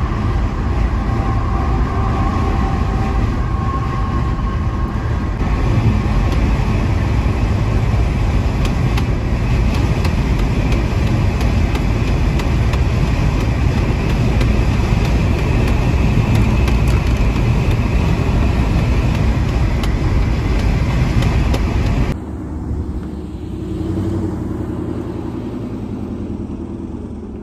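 Loud, steady wind and road noise inside a car at expressway speed, with the windshield cracked and its loose molding flapping against the glass. Near the end it drops abruptly to a quieter, lower rumble.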